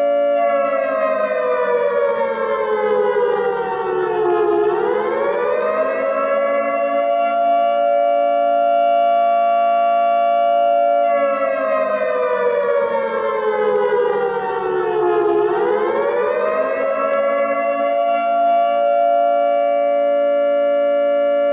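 Air-raid (civil defence) siren wailing: a held tone that slowly falls in pitch for about four seconds, then sweeps quickly back up and holds again, the cycle coming twice. It is the warning signal for a blackout.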